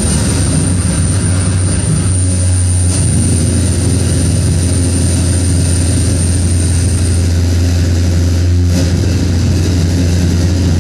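Harsh electronic noise music played live on a tabletop electronics rig: a loud, steady low drone under a dense roaring wash of noise. A thin high whistle runs over it and stops about seven seconds in.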